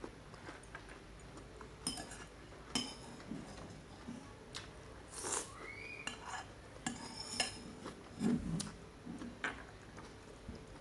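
Metal spoon clinking and scraping against a porcelain plate as food is scooped up. The clinks are irregular and sharp, each with a short ring.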